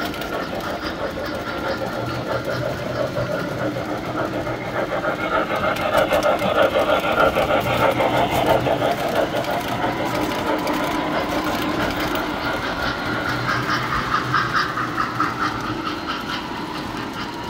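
Tinplate model trains running on three-rail track: electric motors whirring and metal wheels clattering steadily over the rails, louder about six to nine seconds in as a train passes close by.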